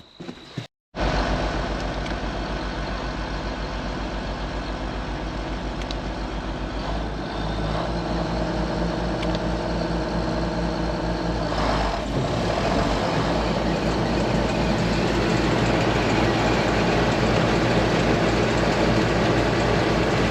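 Case IH 2188 combine running with everything engaged as a test of a newly fitted drive belt. Its diesel engine and threshing machinery run steadily with an even low pulse, growing louder in steps about seven and twelve seconds in.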